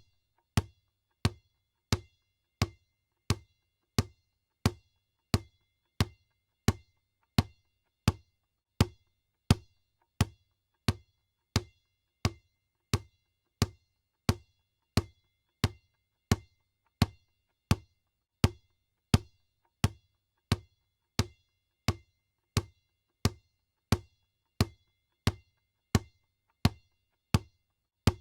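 A basketball bouncing on a floor in a steady dribble, about one and a half bounces a second, each bounce a sharp smack with a short ring.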